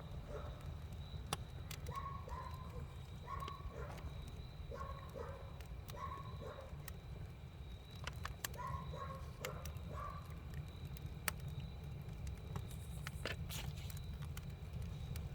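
Campfire crackling with scattered sharp pops over a steady low rumble. An animal calls in short repeated notes about once a second, stopping about ten seconds in.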